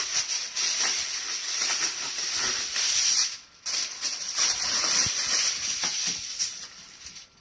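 Aluminium foil crinkling and rustling as a sheet is handled and spread out, with a short break about three and a half seconds in.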